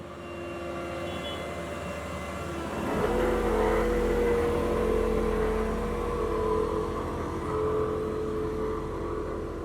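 Diesel engine of heavy road-construction machinery running, revving up about three seconds in and then holding a steady higher pitch.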